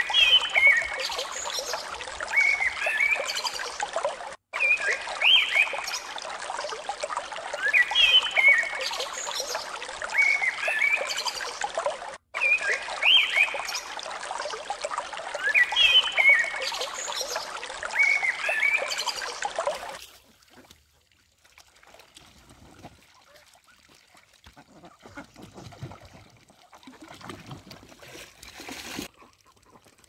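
A recording of trickling water with short bird-like chirps, played as a loop that repeats about every eight seconds and cuts out briefly twice. About twenty seconds in it stops, leaving faint background sound.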